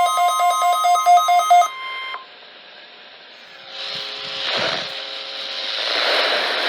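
NOAA Weather Radio warning alarm, a steady 1050 Hz tone, with a rapid pulsing beep of several beeps a second layered over it. The beeping stops about a second and a half in, and the tone cuts off about two seconds in. What follows is radio hiss that swells into a loud static rush in the second half.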